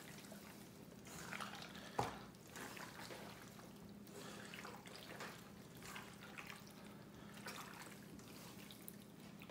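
Hands squishing and turning raw venison chunks in a liquid marinade in a stainless steel bowl: faint, irregular wet squelching, with one sharper click about two seconds in.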